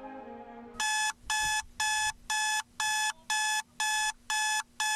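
Digital bedside alarm clock going off: a run of identical electronic beeps, about two a second, starting just under a second in.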